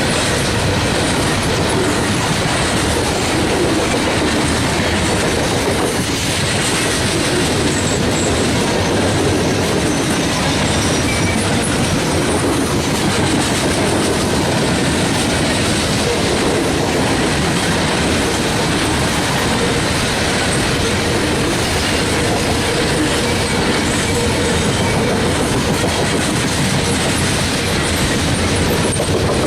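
Coal train's freight cars rolling steadily past: a continuous noise of steel wheels running on the rails.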